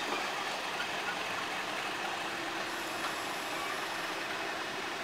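Class 31 diesel-electric locomotive running steadily while the train moves slowly along the track: an even mechanical running noise with no sharp knocks.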